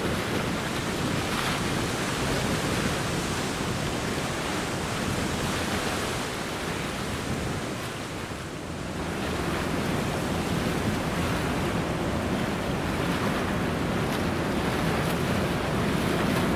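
Wind buffeting the microphone over choppy river water lapping, a steady rushing noise that dips briefly about halfway through.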